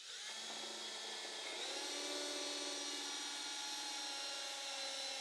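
Power drill boring a hole with a Forstner bit into the end grain of a spruce block; the motor gives a steady whine that rises slightly in pitch about a second and a half in. Cutting into the end grain makes the boring slow and hard.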